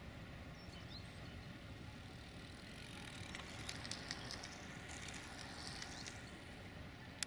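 Faint, steady rumble of a distant freight train of potash hopper wagons hauled by a Raildox locomotive, mixed with low wind noise on the microphone. Faint high crackling through the middle, and a single sharp click just before the end.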